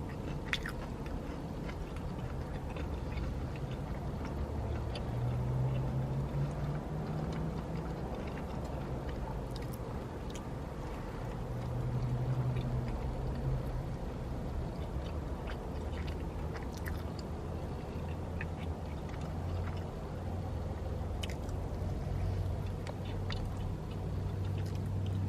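A person chewing and biting into fast food at close range, with a few faint clicks and rustles of food wrappers, over a steady low rumble.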